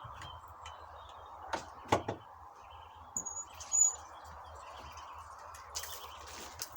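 Birds chirping in short high calls over a steady hiss. A few sharp clicks come about two seconds in.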